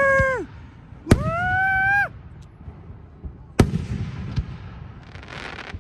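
Fireworks display: a firework whistle fades out at the start, then about a second in a sharp crack is followed by a second whistle, slightly rising, that lasts about a second. About three and a half seconds in a loud bang of a bursting shell.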